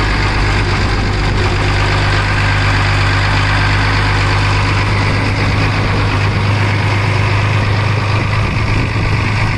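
Inboard marine diesel engine of a sailing yacht idling steadily with an even low hum, running clean and quiet.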